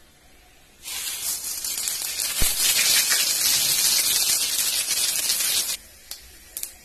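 Panch phoron whole spice seeds dropped into hot mustard oil in a kadhai, the tempering stage. A loud sizzle with fast crackling starts about a second in and cuts off sharply after about five seconds.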